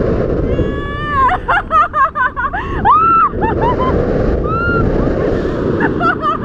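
A person making high-pitched wordless vocal sound effects: quick warbling chirps, a long squeal and sliding whoops that rise and fall in pitch. Heavy wind rushes on the microphone in flight.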